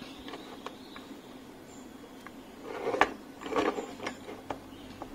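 Light clicks and taps as a potentiometer's legs are fitted into a circuit board's holes, with a louder brief clatter of handling about three seconds in.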